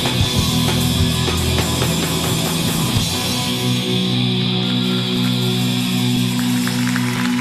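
A live heavy rock band plays: electric guitars, bass and drums. About three seconds in, the drum hits mostly stop and the band holds one chord that rings on steadily.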